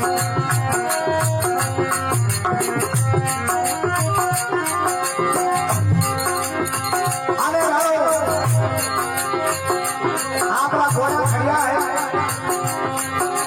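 Rajasthani devotional folk (bhajan) music: a steady drum beat and jingling hand percussion under held tones. A wavering melody line comes in briefly about seven seconds in and again from about ten seconds.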